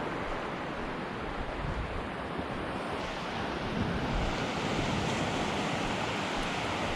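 Ocean surf washing onto a beach, a steady noise of breaking waves, with wind on the microphone.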